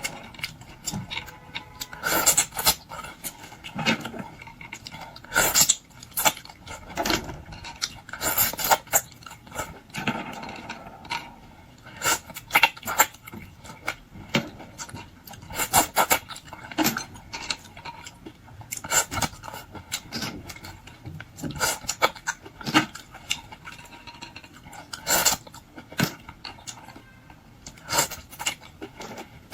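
Eating sounds from boiled seafood such as shrimp and lobster: irregular crunching, crackling and clicking, with occasional clinks of cutlery or dishes.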